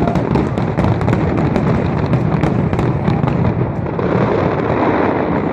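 Aerial fireworks bursting in rapid, overlapping succession: a continuous loud rumble of shell bursts with many sharp cracks on top.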